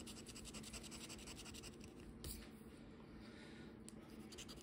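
Faint scraping as the coating of a scratch-off lottery ticket is rubbed away in quick repeated strokes, with one sharper tick a little past two seconds in.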